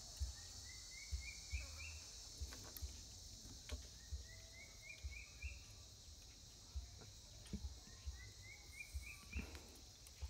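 A bird calls three times, about every four seconds. Each call is a quick run of about five notes climbing in pitch, over a steady high insect drone, with faint low knocks.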